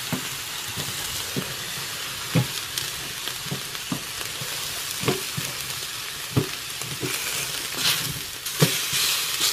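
Beef steaks sizzling on a round metal griddle, with tongs clicking and scraping against the griddle every second or so as the meat is turned. The sizzle swells near the end as pieces are lifted and flipped.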